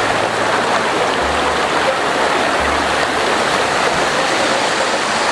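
Steady, loud rush of fast-flowing water from a mountain stream or waterfall close by.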